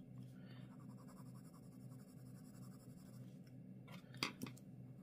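Faint scratching of a Derwent Inktense watercolour pencil drawing on paper, then two sharp clicks close together about four seconds in as pencils are set down on the desk.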